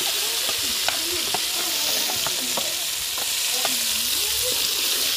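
Thuthuvalai chutney frying in a kadai of hot oil and popped mustard seeds while being stirred: a steady sizzling hiss with scattered sharp clicks and wavering scrapes.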